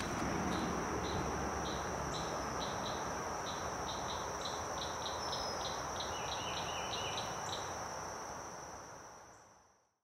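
Natural swamp-woodland ambience: a steady high insect drone over a soft outdoor hiss, with a run of short repeated chirps that quicken through the middle. It fades away near the end.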